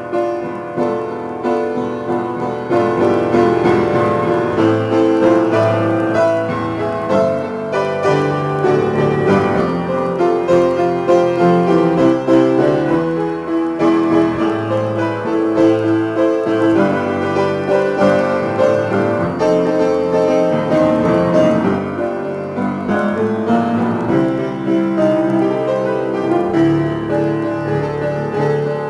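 Upright piano played steadily with both hands: a freely improvised piece in A minor, with continuous chords and melody notes.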